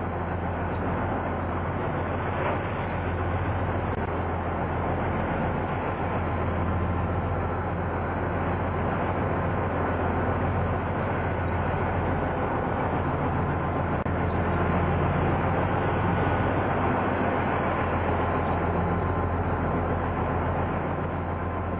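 A steady engine drone: a constant low hum under a wash of noise, with no change in pitch.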